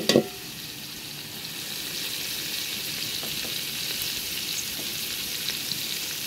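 Sliced onion, garlic, green chillies and tomato sizzling in hot oil in a metal pot, a steady hiss. A wooden spatula knocks against the pot a couple of times right at the start.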